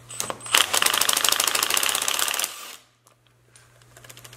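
Cordless impact driver with a 14 mm socket hammering rapidly for about two seconds, breaking loose the nut on a wiper motor's output shaft, then stopping, followed by a few light clicks.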